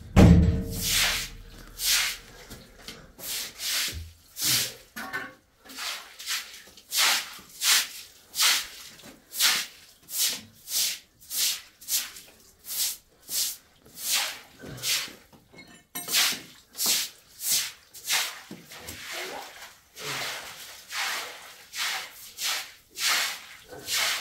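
A heavy thump at the start, then a long run of even scraping or rubbing strokes, about three every two seconds.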